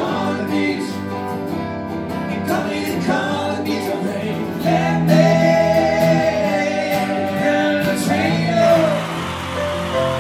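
Live acoustic band music: acoustic guitars and keyboard under sung vocals, with a long held sung note around the middle. About eight and a half seconds in, it cuts to another song with an even hiss underneath.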